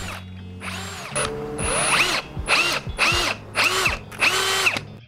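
AEG 18 V cordless percussion drill run in a series of short trigger pulls into wood, its motor whining up to speed and winding down each time.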